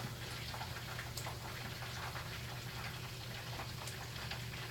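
Chicken wings deep-frying in hot oil: a steady sizzle with fine, rain-like crackling, over a constant low hum.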